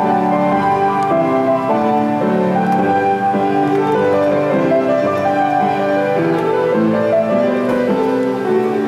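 Instrumental keyboard music playing a slow, continuous run of sustained chords.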